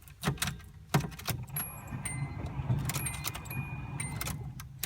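Car keys jangling and clicking in the ignition of an LS1-swapped Nissan 240SX, then a steady low hum with a faint high whine for about three seconds.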